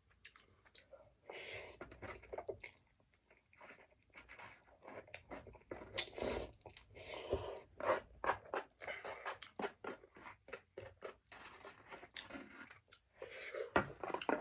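A person chewing a mouthful of stir-fried instant noodles close to the microphone, with wet smacks and clicks in quick, irregular runs and short pauses between them.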